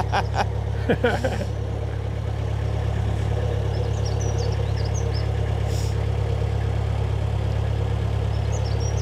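Narrowboat's inboard diesel engine running steadily while under way, a constant low hum with no change in speed. Faint bird chirps come through over it.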